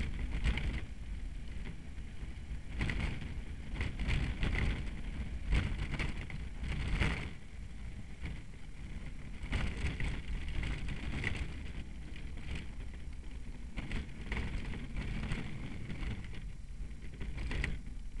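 Engineless soapbox cart rolling down an asphalt street, heard from on board: a constant low rumble of the wheels and wind on the microphone, with many short knocks and rattles from the cart's body as it goes over bumps.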